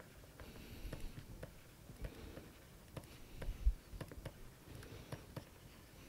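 Stylus tapping and scratching on a pen tablet while handwriting, a string of irregular light clicks, with one stronger low thump about three and a half seconds in.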